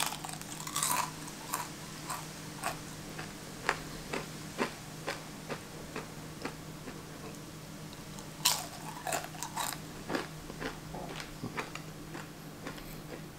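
Extra-crunchy fried back bacon being bitten and chewed: a loud crunching bite at the start and another about eight and a half seconds in, with smaller crisp crunches of chewing in between. A faint steady hum runs underneath.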